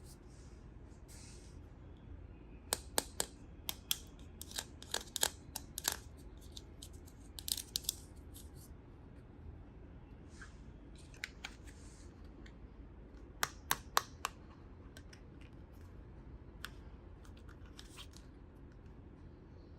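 Small plastic toy parts and packaging being handled: scattered sharp clicks and taps, bunched in two flurries, with a few brief rustles.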